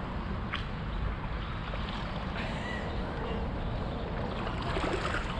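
Wind rumbling on a chest-mounted action camera's microphone over water splashing from stand-up paddle strokes, with a couple of short splashes.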